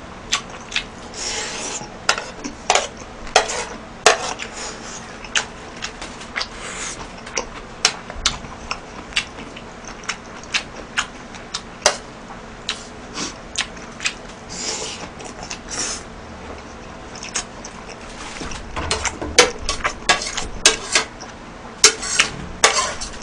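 Metal spoon clinking and scraping against a plate as food is scooped up, in many short irregular clicks and scrapes that come thickest near the end as the plate is scraped clean.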